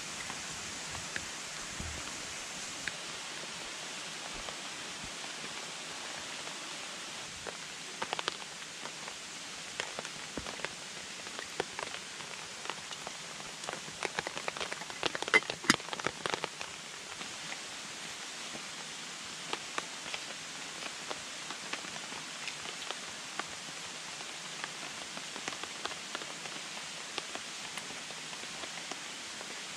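Steady rushing of water and rain, with scattered light taps and clicks that come thickest about halfway through.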